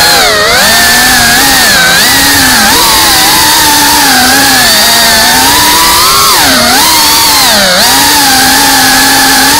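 FPV racing quadcopter's electric motors and propellers whining, heard close from the onboard camera. The pitch rises and falls with the throttle, with sharp dips near the start and twice more about two-thirds of the way through as the quad banks through the trees.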